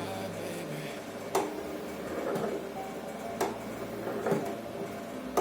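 A few sharp knocks and clicks, about four, spaced a second or two apart, over a low steady hum.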